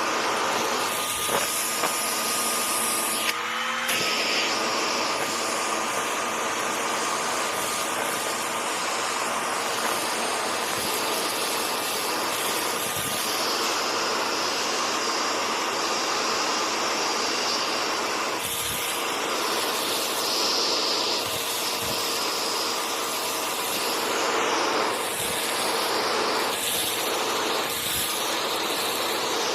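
Upright vacuum cleaner running: a steady motor whine over rushing air, with a brief shift in the whine's pitch about three and a half seconds in.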